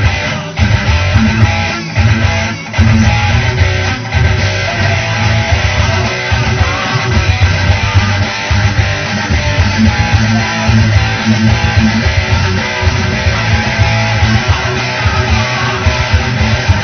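Guitar-led band music with a strong bass line, an instrumental passage with no singing. A few sharp accents come in the first four seconds before it settles into an even flow.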